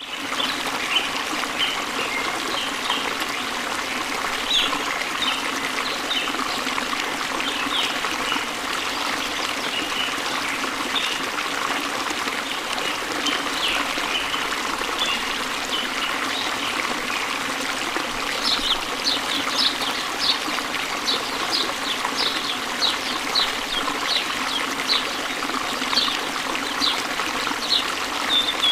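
Waterfall water rushing and splashing steadily. Birds chirp over it throughout, and from about two-thirds of the way in one repeats a short call about twice a second.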